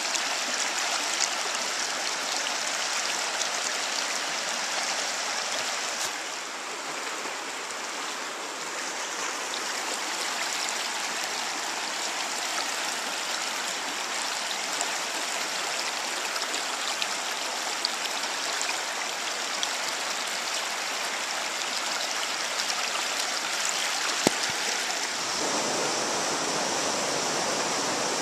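River water rushing over and around rocks in a shallow rapid: a steady stream noise, which grows fuller and deeper about three seconds before the end.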